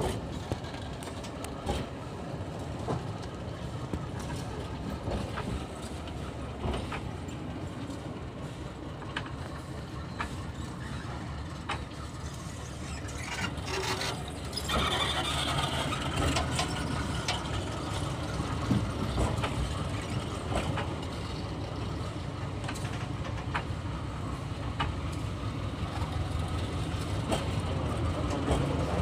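Passenger coach wheels rolling slowly along the rails during shunting: a steady low rumble with sharp clicks as the wheels pass the rail joints. It grows louder about halfway through, with a brief high squeal.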